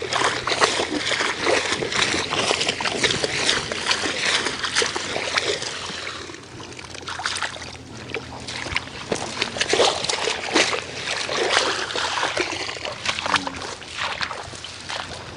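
Shallow marsh water splashing and sloshing as a hand-held scoop is swept through it to catch small fish. The splashing is heavier for the first half, then gives way to lighter, scattered splashes.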